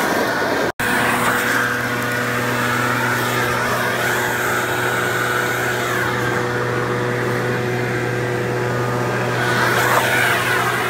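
Gas-powered backpack leaf blower running steadily with a constant engine hum; the sound breaks off for an instant about a second in.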